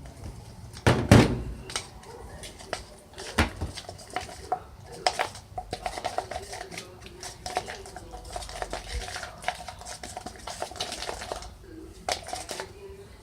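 Slime being mixed in a bowl: a utensil clinks, knocks and scrapes against the container in irregular strokes, with one loud knock about a second in.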